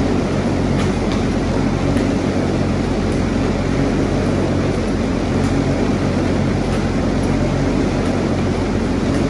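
Skating treadmill running steadily under a skater: a low motor hum and the rush of the moving belt, with faint regular ticks as the skate blades stride on the belt.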